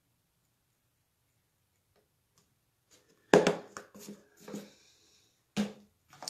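Near silence for about three seconds, then a plastic lid pressed down onto a plastic storage tub: one loud sharp clack followed by a few lighter clicks and knocks.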